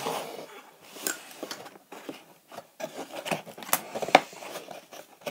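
A cardboard box being picked open by hand: irregular scratching and rubbing with sharp clicks of fingers and long artificial nails on cardboard, the sharpest click a little after four seconds in.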